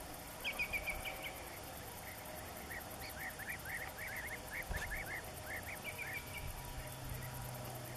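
High-pitched animal calls: a quick run of short notes, then a rapid series of brief rising squeaks or chirps, about three to four a second.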